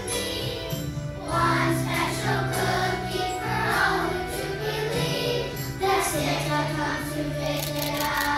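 Children's choir singing, backed by instrumental accompaniment with held low notes.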